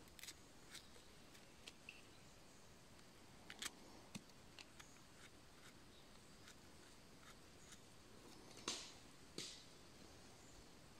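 Near silence broken by faint scratches and clicks of a folding knife scraping the stem of a freshly picked mushroom, with two louder scrapes a little before the end.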